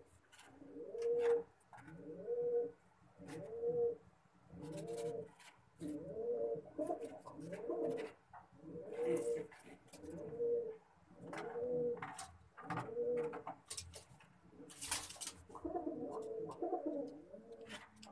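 Domestic pigeons cooing, a low throaty coo phrase repeating about once a second, with short sharp clicks between the coos and a brief loud rustle about 15 seconds in.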